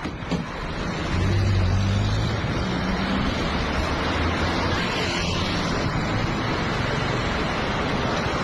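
Strong storm wind rushing and buffeting the microphone, a dense noise with a low rumble beneath it that swells about a second in and then holds steady.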